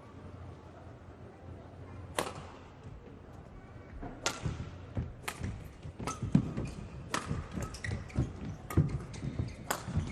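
Badminton rally in a hall: sharp cracks of rackets striking the shuttlecock, the first about two seconds in and then roughly once a second, coming quicker toward the end, with dull thuds of players' footwork on the court between hits.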